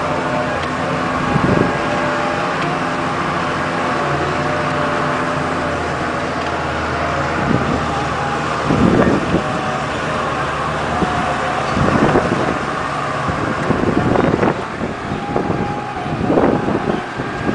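Motor vehicle's engine running steadily, heard from inside the cabin while driving on a rough, rocky mountain track. A few louder jolts and rattles stand out as the vehicle bumps along.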